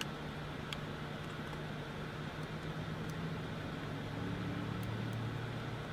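Steady low hum of a car idling, heard from inside the cabin. A couple of faint clicks come near the start as a micro SD card is worked into the mirror dash cam's slot.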